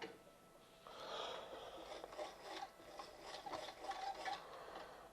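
Quiet, irregular scraping and rubbing as small tools and items are handled on a repair bench, after a single click at the start.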